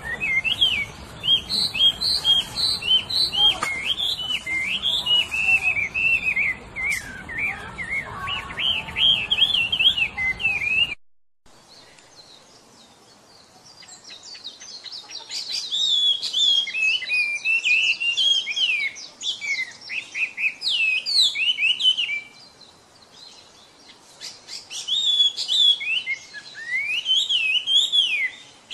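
Chinese hwamei singing: a fast, continuous run of varied whistled phrases that breaks off suddenly about a third of the way in, then resumes in bursts separated by short pauses.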